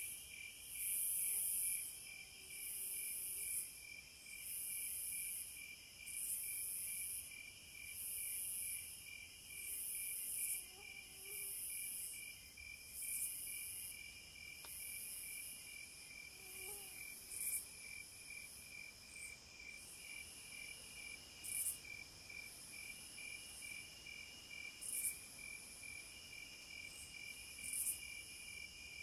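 Cicadas buzzing high and shrill in swells about once a second, settling into a steadier drone about halfway through with a few sharp short bursts. Under them a lower insect trill pulses evenly, two to three beats a second.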